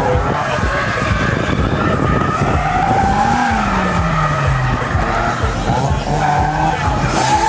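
Nissan S14 drift car sliding sideways: its engine is worked up and down on the throttle over continuous tyre squeal, with the engine note dropping clearly about halfway through.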